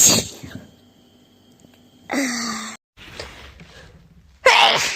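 A young woman sneezing from allergic rhinitis. A sharp sneeze comes at the start, then a voiced gasping intake of breath about two seconds in, then a second loud sneeze near the end.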